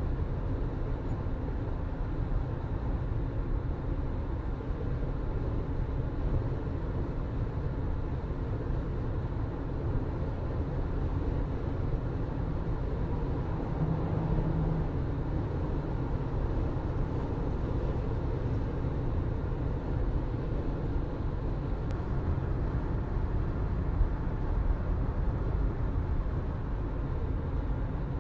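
Car being driven, the engine humming steadily under an even, low rumble of tyres on the road.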